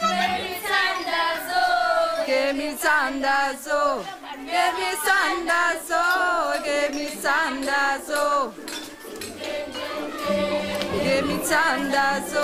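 A group of girls and young women singing together, several voices at once in a chant-like song.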